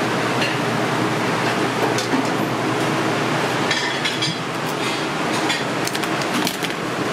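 Steady kitchen background noise, like a running exhaust fan, with a few sharp clicks and cracks about four seconds in and again near six seconds: kitchen scissors snipping through cooked king crab shell.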